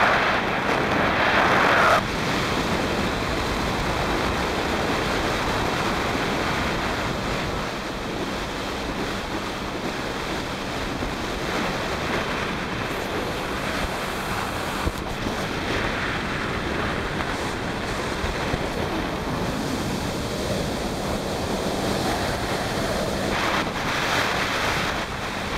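Wind buffeting the microphone and water rushing past a Sea-Doo personal watercraft running at top speed, around 64 mph, with a thin steady whine underneath. The rush is loudest for the first couple of seconds, then holds steady.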